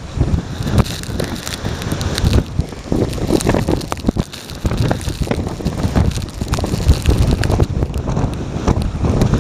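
Strong typhoon wind gusting and buffeting the microphone, with heavy surf from high waves breaking against the harbour wall and reef beneath it.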